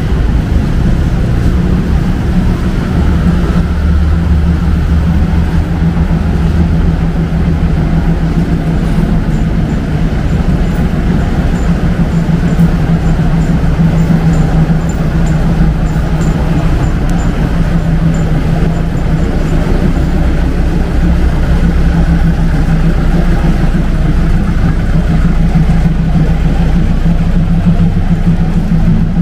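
Engine running steadily close by, a low, even drone that does not rise or fall.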